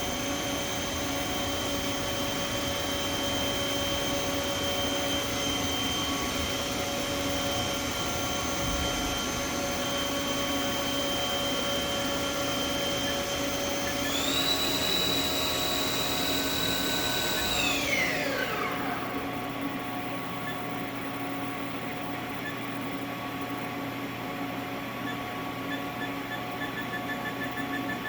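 Haas VF-3 vertical machining center's 2-speed geared spindle running with a steady whine. About fourteen seconds in the whine steps up in pitch and holds for a few seconds, then glides down as the spindle winds to a stop. The machine's lower steady hum is left running after that.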